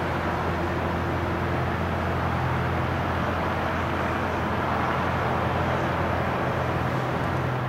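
Embraer 195 airliner's twin GE CF34-10E turbofan engines running steadily with a low drone as the jet rolls along the runway after landing.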